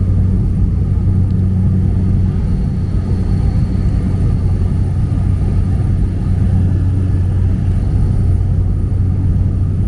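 A small propeller plane's engine droning steadily in flight, heard from inside the cabin as a loud low hum that holds one pitch.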